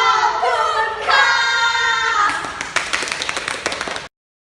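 Several girls' voices calling out together in drawn-out unison, then hand clapping for about the last two seconds, cutting off suddenly.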